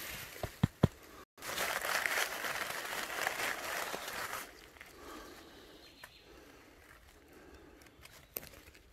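Dry leaf litter rustling and crackling with handling movement, loudest for a few seconds after the start, with two sharp knocks in the first second.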